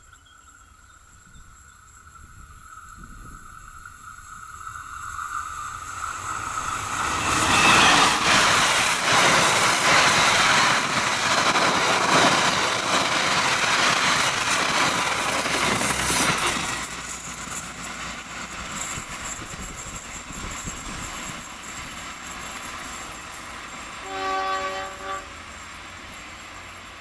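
A train passing at speed. It builds for about seven seconds as it approaches, stays loud for about nine seconds as the cars rush past, then fades away. Near the end there is a short horn blast of about a second.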